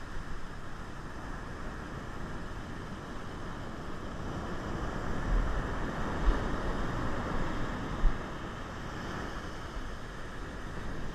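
Heavy ocean surf washing up the beach, a steady rushing wash, with wind buffeting the microphone. Two brief low thumps stand out, about six and eight seconds in.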